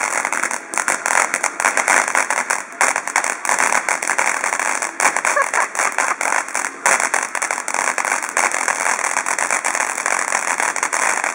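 Ground fountain firework spraying sparks: a steady hiss with dense crackling.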